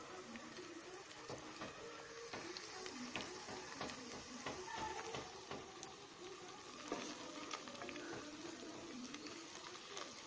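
Sliced onions sizzling in hot oil in a pressure-cooker pot, being fried until light golden, while a wooden spatula stirs them, scraping and knocking against the pot now and then.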